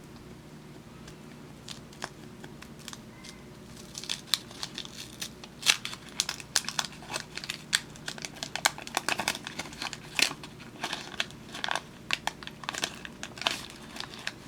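Wax paper wrapper of a 1975 Topps baseball card pack being torn open and crinkled. A few faint clicks give way, about four seconds in, to a dense run of sharp crackles.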